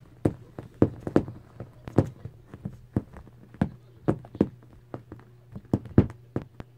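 Irregular soft thumps and taps, two or three a second, from a cat pawing and scratching at a nubbly couch cover, over a low steady hum.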